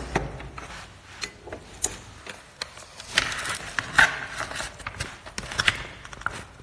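Irregular small clicks, taps and rubbing from handling a multimeter and its test probes while setting up to test a refrigerator compressor's overload protector. The loudest click comes about four seconds in.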